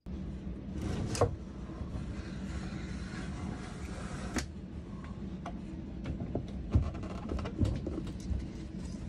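Handling on a workbench: scattered knocks and clicks over a steady low background noise, the sharpest about a second in and another at about four and a half seconds.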